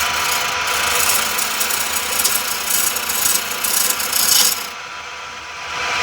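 Homemade wood lathe running on a washing-machine motor, with a steady hum and rattle, and rough scraping as a homemade chisel cuts the spinning wooden workpiece. The scraping stops briefly about five seconds in.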